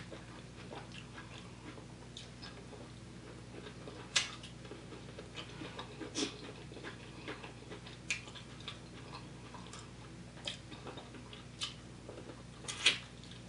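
Close-miked eating sounds: scattered wet clicks and smacks of a mouth eating and of fingers working food in a bowl of stew. The loudest smack comes near the end, as food goes into the mouth, over a faint steady hum.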